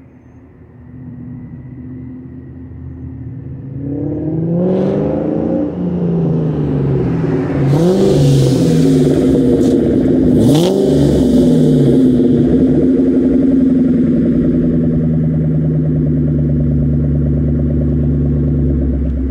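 2003 Mustang Cobra's supercharged 4.6-litre V8, breathing through an off-road X-pipe and Borla Stinger mufflers, grows louder as the car pulls up, its revs rising and falling with a sharp blip about ten seconds in. It then idles steadily.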